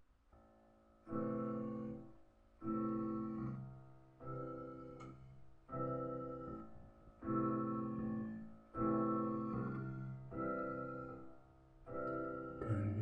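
Background music: slow piano chords, one struck about every one to one and a half seconds and left to ring, with a fuller song coming in at the very end.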